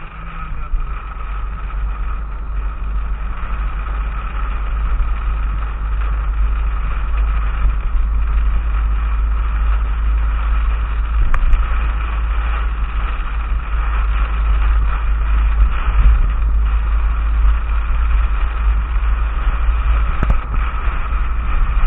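Heavy rain pounding on a car's roof and windshield during a thunderstorm, mixed with the car's running noise: a loud, steady roar with a deep rumble, building over the first few seconds.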